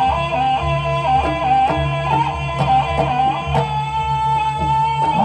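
Accompaniment music for a barongan performance: a held melody that slides between notes, over a steady beat of repeated hits.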